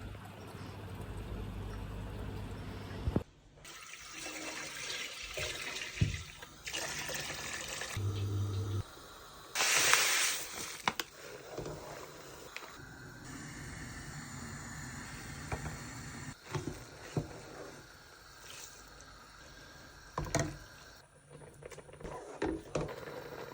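A run of short kitchen sounds of liquid being poured and sloshed, broken off abruptly several times, with a few sharp clicks of utensils against dishes.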